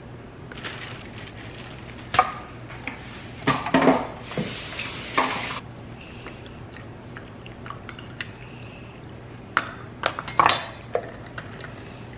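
Kitchen handling sounds: scattered knocks and clinks as a glass clamp-lid jar and a wooden salt cellar are handled on a countertop. A hissing burst about a second long comes near the middle.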